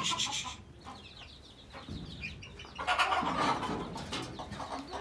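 Chickens clucking and cheeping, with a louder, noisier stretch from about three seconds in.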